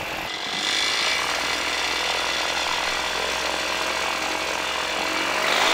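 Flylight PeaBee flexwing microlight's engine and propeller running at low power while the trike taxis over grass. Near the end the engine note rises and grows a little louder as the throttle is opened.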